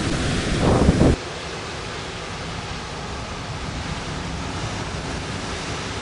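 Wind buffeting the microphone over storm surf washing up a pebble beach. About a second in it cuts off suddenly to a steady, even hiss of distant surf breaking on rocks.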